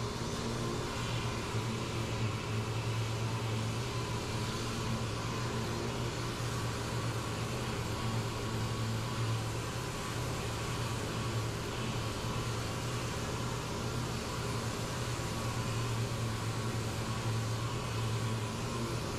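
Air-powered orbital sander running steadily, its pad sanding cured body filler on a car's quarter panel.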